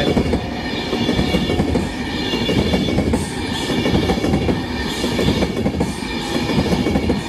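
Class 390 Pendolino electric train passing close by at speed: a loud, steady rush and rumble of its wheels on the rails, with a faint regular beat about once a second as the carriages go by.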